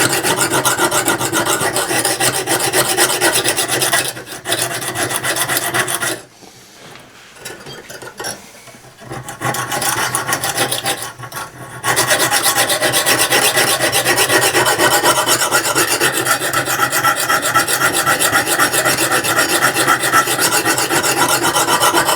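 Dry Lansky diamond sharpening stone rasping back and forth on the steel spine of a saw blade in quick, even strokes, used without oil. The stroking eases to lighter, broken scrapes about six seconds in, then picks up again at full strength near the middle.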